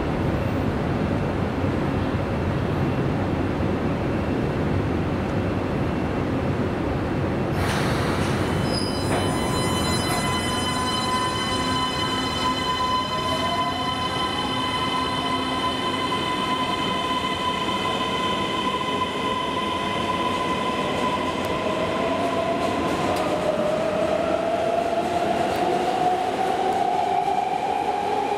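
Keisei electric train at the platform: steady running noise, then from about eight seconds in several steady electric whines, with a motor whine rising in pitch through the last few seconds as the train picks up speed.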